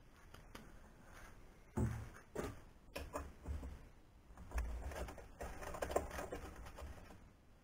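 Handling noise: a run of light knocks and clicks with rustling as hands work inside an aluminium-extrusion CNC frame. It starts about two seconds in and dies away near the end.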